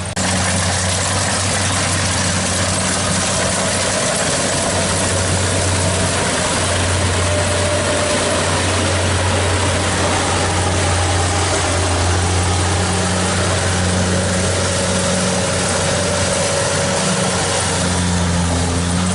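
Kubota DC70 Plus rice combine harvester running steadily at constant engine speed, a deep even hum under a wide mechanical hiss, cutting in suddenly just after the start.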